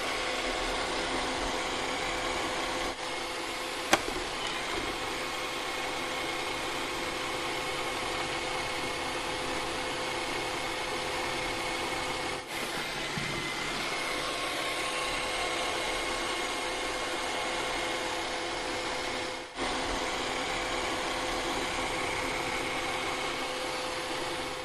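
A steady mechanical whir with a constant hum, briefly dropping out about 3, 12 and 20 seconds in, with a single sharp click about 4 seconds in.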